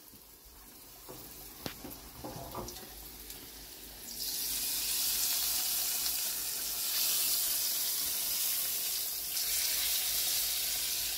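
Hot-oil tempering of fried shallots, curry leaves and dried red chillies poured from a small kadai into a pot of chicken curry, sizzling loudly and steadily from about four seconds in. Before it, a couple of light knocks of the pan.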